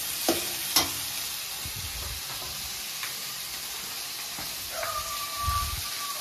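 Onion and tomato sizzling steadily as they fry in a steel kadai, with two sharp clicks of the slotted spoon against the pan within the first second. Near the end, a thin steady tone sounds for about a second.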